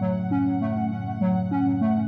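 Background music: a keyboard melody of short notes over a steady repeating accompaniment.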